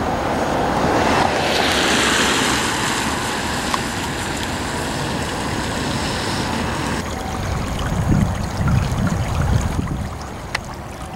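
Outdoor rushing noise of floodwater and wind. It is louder and hissier for the first several seconds, then drops suddenly, and low gusts of wind rumble on the microphone near the end.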